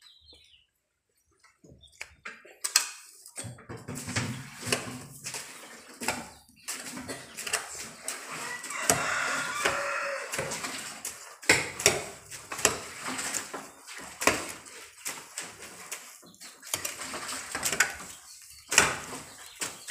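Hoes chopping and scraping through a heap of wet cow-dung mix, the blades knocking and scraping on the concrete floor in quick irregular strokes, starting after a quiet second or two.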